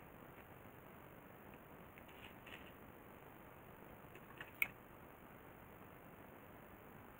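Quiet room hiss with a few small clicks of a small plastic part being handled in the fingers, a little over two seconds in, then one sharp click about halfway through.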